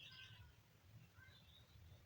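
A kitten making faint, high-pitched squeaks over low room hum: a short cluster right at the start and another brief one about a second and a half in.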